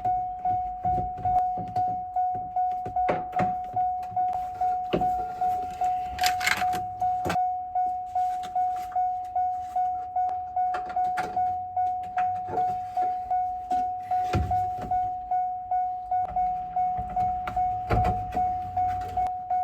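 A pickup's warning chime dinging steadily about twice a second, one tone over and over, with scattered clicks and knocks of hand tools on metal and plastic as the mirror's mounting nuts are started.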